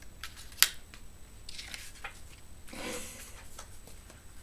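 A single sharp click about half a second in, then soft rustling of sheets and duvet as a person sits up in bed.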